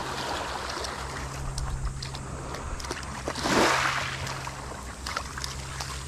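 Small waves lapping on a pebble shore, with one louder wash of water about three and a half seconds in, over scattered light clicks of pebbles.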